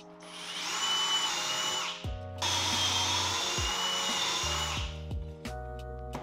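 Cordless drill boring pocket holes through a Kreg pocket-hole jig into a test piece of wood: two runs of about two seconds each with a high whine, a short pause between them.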